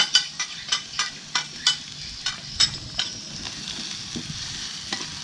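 Diced carrots sizzling in hot oil in a metal wok as a metal spoon stir-fries them, the spoon clicking and scraping against the pan. The clicks come quickly in the first three seconds and thin out after that, over a steady sizzle.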